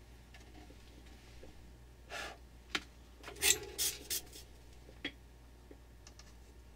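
A steady low hum with a handful of short rustling, breath-like noises clustered between about two and five seconds in.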